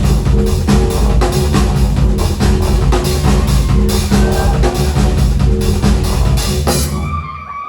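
Live rock band playing loud, with drum kit, bass and guitar, stopping abruptly about seven seconds in.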